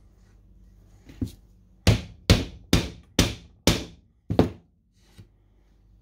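A claw hammer striking the wooden end bar of a beehive super frame held in a wiring jig. One light tap, then six sharp blows at about two a second, each ringing briefly.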